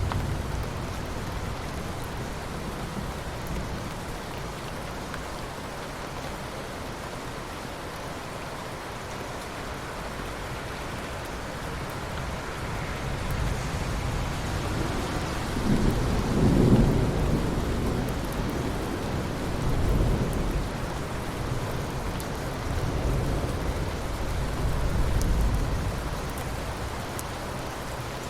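Steady rain falling in a forest, with low rolls of thunder swelling up several times in the second half, the loudest about halfway through.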